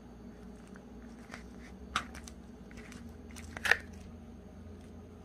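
Paper plate of salad being handled: a few sharp crackles and clicks, the loudest about two seconds in and another just before four seconds.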